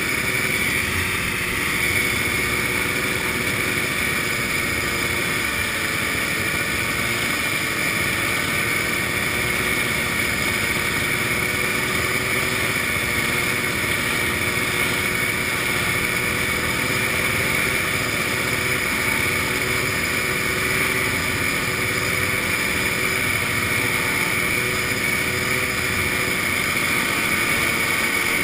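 Vintage snowmobile engine running steadily at cruising speed, its drone mixed with steady wind and road noise from riding along.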